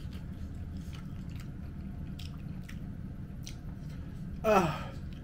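A person eating and chewing, with scattered soft mouth clicks, and a short vocal sound falling in pitch about four and a half seconds in.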